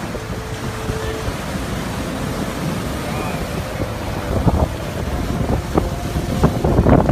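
Hurricane wind and heavy surf crashing on the shore, with gusts buffeting the microphone, stronger in the last few seconds.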